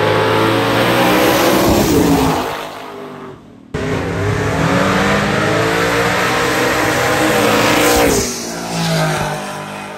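Drag race cars running down the strip at full throttle, loud, the engine note falling as they pass by. A sudden cut about four seconds in brings a second run, which drops away near the end.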